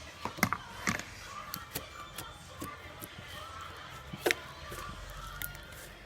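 Slime being squeezed and stretched by hand, giving sharp wet clicks and pops at irregular moments, the loudest about four seconds in, over a faint background murmur.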